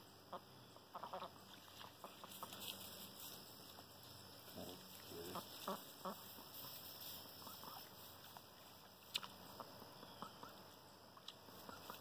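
Faint duck quacking from the pond, a few short calls about halfway through, with scattered light clicks.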